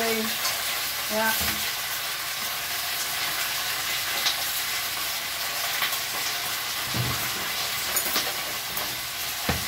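Mussels frying in olive oil in a stainless steel pan, a steady sizzling hiss, stirred with a utensil that knocks against the pan a few times in the second half.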